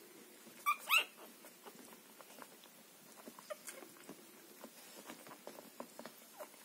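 Newborn Havanese puppies nursing: two short high squeaks about a second in, then faint soft clicks of suckling and shuffling.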